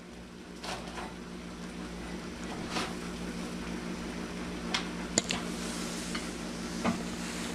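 Wooden spatula cutting and scraping through baked bread stuffing in a metal baking pan, giving a few scattered knocks and scrapes, the sharpest about five seconds in, over a steady low hum.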